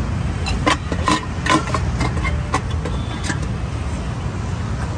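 A run of light clinks and clatters of stainless-steel cookware, a casserole lid and utensils being handled, from about half a second to three seconds in, over a steady rumble of road traffic.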